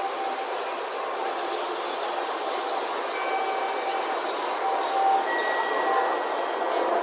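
Tokaido Shinkansen train running into the platform: a steady rushing rail noise that grows a little louder. Thin, high brake and wheel whines come in about halfway through.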